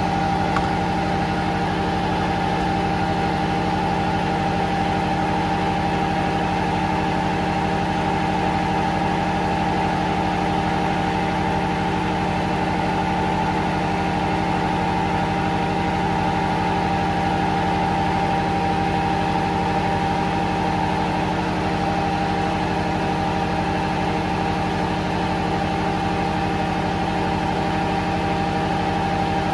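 Diesel generator set running at a steady speed: a constant engine drone with several steady hum tones that never change.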